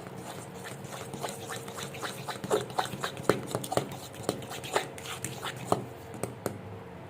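Thick cake batter being stirred in a bowl after water is added: quick, irregular clicks of the utensil against the bowl mixed with wet squelching, busiest in the middle seconds.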